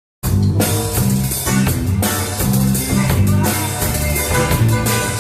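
A worship band playing, with drum kit and guitar, starting abruptly out of silence just after the start and carrying on at a steady loud level.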